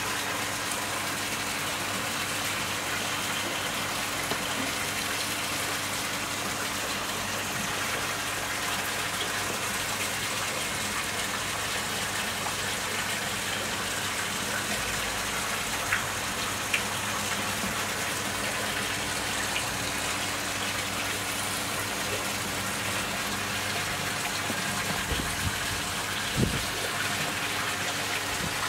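Steady rush of running water with a low hum underneath, and a few faint knocks in the second half.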